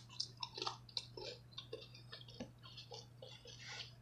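A person chewing food close to the microphone: a run of faint small mouth clicks and smacks.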